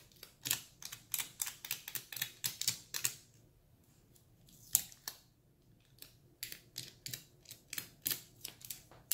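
Scotch tape being dabbed on and pulled off a Galaxy Note 9's glass screen. Each lift gives a quick sticky click, about four a second. After about three seconds they pause, with a single click in the gap, then start again for the last few seconds.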